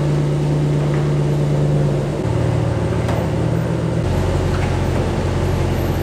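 Ram 1500 pickup's engine idling: a steady low hum whose pitch drops in two steps, about two seconds in and again about four seconds in.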